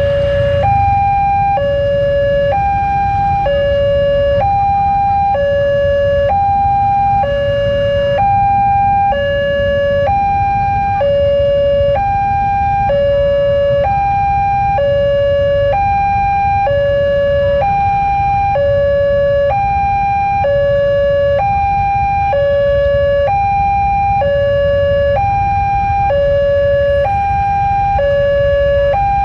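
Railway level-crossing warning alarm sounding a steady two-tone signal, a higher and a lower tone alternating about once a second, which warns that a train is approaching. A low traffic rumble runs underneath.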